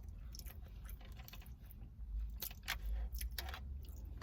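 Close-up eating sounds: chewing and wet mouth clicks from a crispy chicken and rice bowl, with a few louder crunchy snaps a little past the middle, over a low steady hum.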